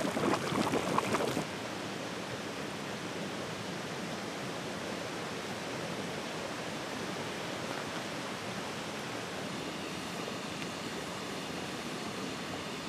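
Thermal spring water gushing and bubbling over stones. After about a second and a half it cuts off suddenly, and a quieter, steady hiss of flowing water takes over.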